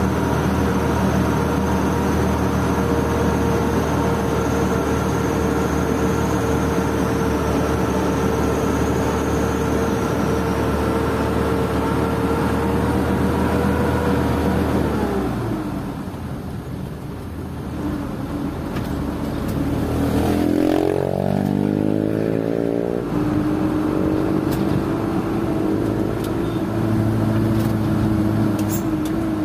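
Isuzu Elf NKR71 truck's four-cylinder diesel engine running steadily, heard from inside the cab. About halfway through the note falls and goes quieter for a few seconds during a gear change, then climbs as the truck accelerates and settles at a new steady pitch.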